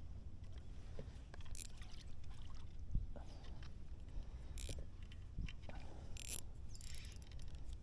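Scattered short scrapes, clicks and brief splashy rushes from handling gear aboard a fishing kayak, over a low steady rumble.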